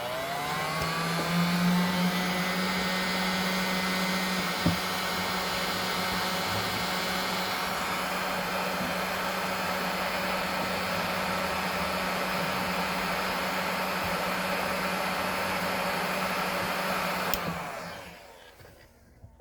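Heat gun switched on, its fan spinning up over the first second or so, then blowing steadily and winding down near the end as it is switched off, warming a small screw cover on an acoustic guitar to loosen it for removal. A single sharp click about five seconds in.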